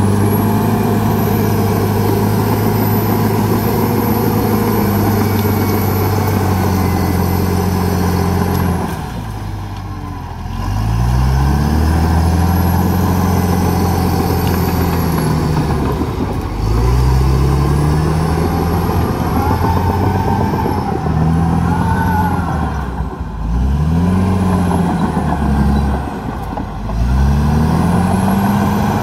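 Diesel engine of a CAT D7R crawler dozer working hard as it pushes through brush, with a high whine over the engine note. The engine drops in pitch about a third of the way in and twice more near the end, each time climbing back up.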